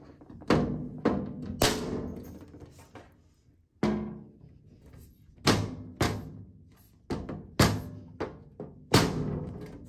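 A glass pane of an IKEA Milsbo cabinet being forced into its frame past small retaining bumps: about ten sharp knocks at uneven intervals, each with a short ringing after it.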